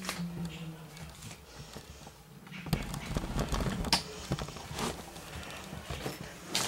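Camera handling noise: irregular small knocks and rubbing as the camera is pressed against hair and moved about.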